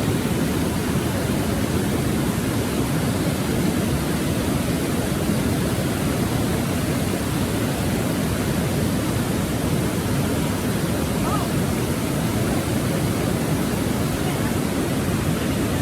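Rapids of the Okavango River at Popa Falls, rushing water making a steady, even noise that does not change throughout.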